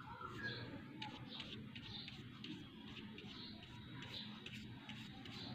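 Paintbrush loaded with gouache brushing and scratching across paper in short, irregular strokes.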